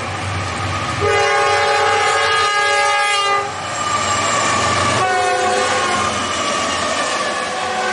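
Diesel freight locomotive's air horn sounding as it passes: a long blast that bends down in pitch as the locomotive goes by, about three seconds in, then a short blast. Under the horn, the train rumbles and its wheels clack on the rails.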